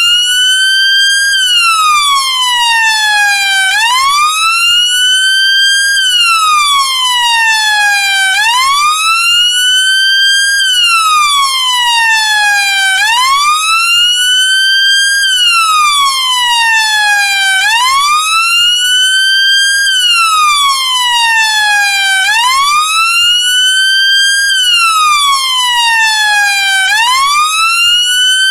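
UK police car siren sounding its wail: a long, slow rise and fall in pitch, rising quickly and sliding down more slowly, repeating about every four to five seconds.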